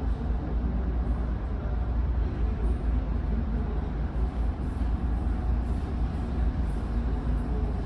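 Steady low rumble of the car ferry's engines and hull, heard inside the passenger deck.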